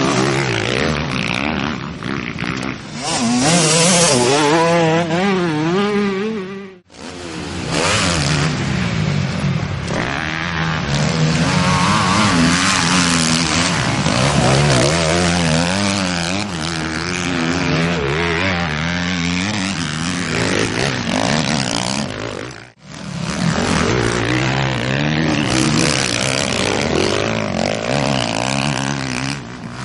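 Motocross dirt bike engines revving hard, their pitch rising and falling as the riders throttle on and off through the course. The sound cuts out briefly twice, about 7 and 23 seconds in.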